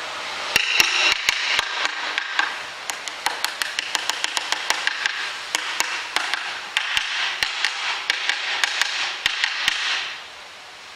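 Hammer tapping the gears down into place in a Hobart A200 mixer's gearbox: a run of quick, uneven metallic taps with a little ringing, stopping near the end.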